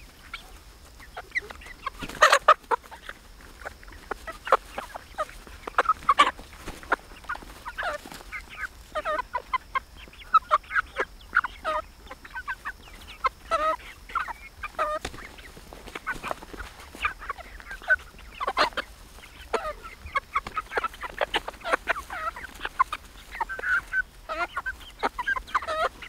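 A flock of young laying hens, largely Silver Laced Wyandottes, clucking and peeping in many short calls as they crowd in to peck berries from a hand, with a couple of sharp clicks.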